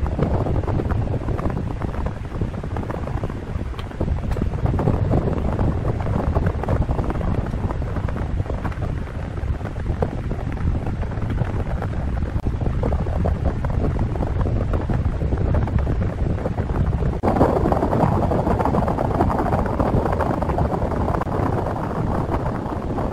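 Steady rushing wind noise on the microphone, turning brighter about seventeen seconds in.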